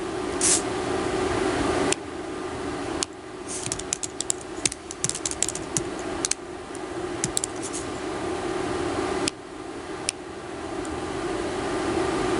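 Computer keyboard typing, a quick run of key clicks in the middle with a few single clicks later, over a steady fan hum.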